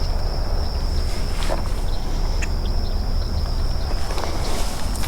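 An insect drones as one steady high-pitched tone over a strong low rumble on the microphone, with a few light rustles and clicks.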